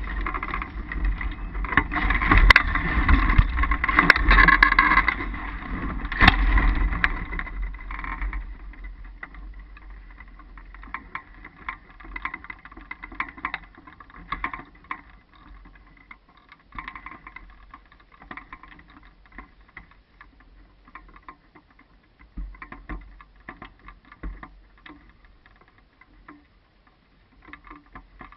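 Airflow rushing over the microphone on the hang glider's frame as the glider comes in to land, dying away after about eight seconds as it slows to a stop. Faint scattered clicks and rustles follow.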